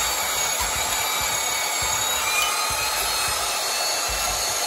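Corded portable band saw running and cutting into a Stihl MS250 chainsaw's body, a steady motor whine with the hiss and rasp of the blade through the metal.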